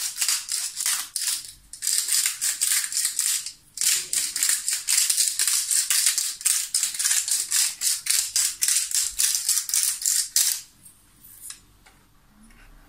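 Hand-twisted spice grinder grinding, a fast run of dry clicks with two brief pauses in the first four seconds, stopping a couple of seconds before the end.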